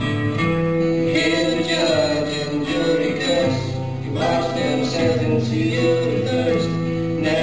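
Two acoustic guitars playing a song together live.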